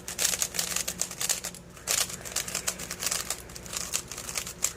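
GAN 354M magnetic speedcube being turned quickly by hand: fast runs of clicky plastic turning, with a couple of short pauses.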